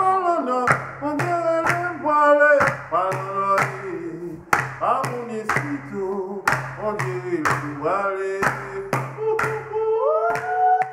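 Singing over sharp, regular claps, about two a second. Near the end the voice holds one long note.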